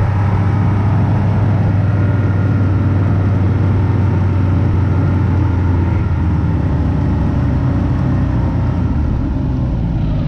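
A small vehicle's engine running steadily as it travels along a trail, easing off slightly near the end.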